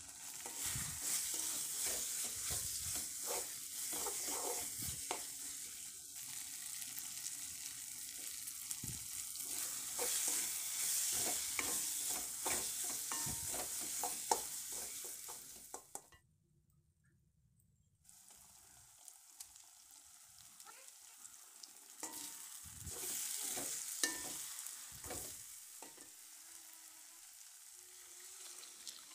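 Masala frying and sizzling in a metal kadai while a wooden spatula stirs and scrapes through it, with frequent short scrapes and knocks against the pan. The sound drops out for about two seconds midway, then carries on more quietly.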